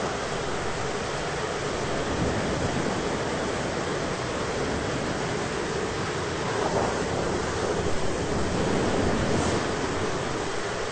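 Thunderstorm ambience: a steady, dense rushing of wind and rain, swelling a little about two-thirds of the way through.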